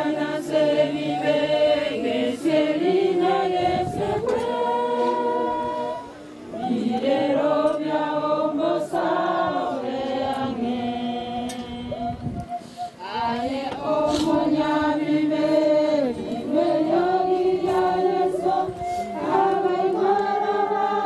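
A group of voices singing together, with short breaks between phrases.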